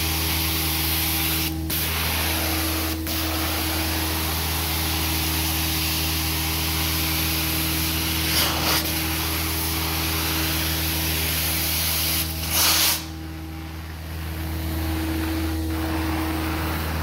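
Carpet-cleaning extractor running: a steady hiss of spray and vacuum over a constant motor hum, broken by a couple of brief dips. There is a louder rush about three quarters of the way through, after which the hiss drops for a second or so before it resumes.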